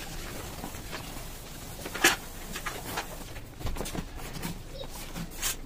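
Patterned wrapping paper and cardboard being handled and folded: irregular rustling and crinkling, with a sharp crackle about two seconds in and another near the end.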